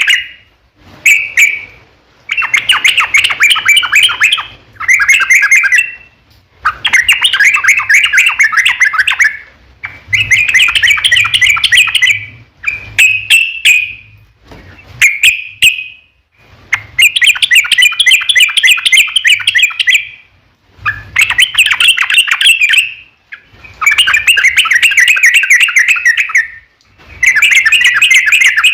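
Yellow-vented bulbul (trucukan) singing loud, fast, bubbling song phrases in a long rolling series: a dozen or so phrases, each one to three seconds long, with short pauses between them.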